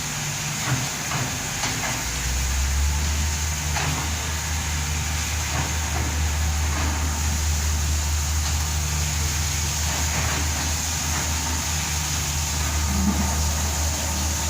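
Backhoe's diesel engine running steadily, its pitch rising about two seconds in as it speeds up, with a few light knocks now and then.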